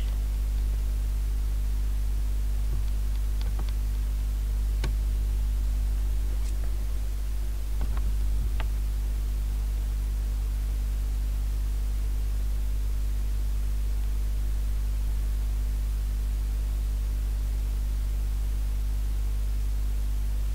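Steady electrical mains hum with hiss on an open microphone, with a few faint clicks in the first half.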